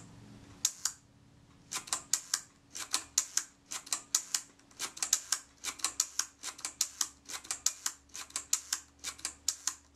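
Kodak Retina IIIc leaf shutter set to 1/8 s, cocked and fired over and over: a quick run of sharp small metallic clicks, many in close pairs, starting after a quiet second or so. It is being checked by ear and sounds, if anything, slightly slow.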